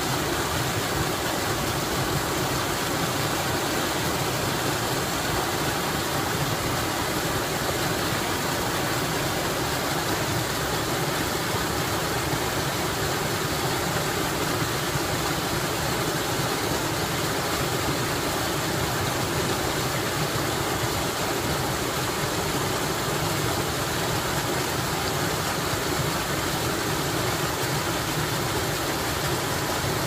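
Small forest waterfall running full and splashing into a shallow pool: a steady, even rush of water.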